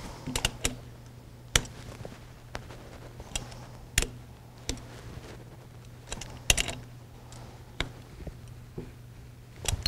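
Torque wrench working the air motor's mounting bolts: scattered sharp metal clicks and taps, a dozen or so at irregular intervals, as the bolts are brought up to 22 foot-pounds.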